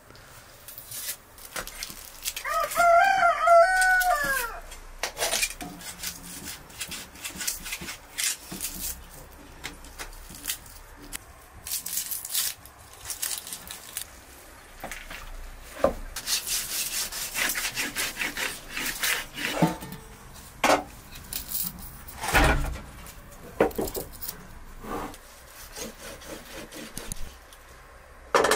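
A rooster crows once, about two to four seconds in, the loudest sound here. The rest is a knife scraping and cutting the hide off a singed cow's head on a wooden board: scattered scrapes, rubs and clicks.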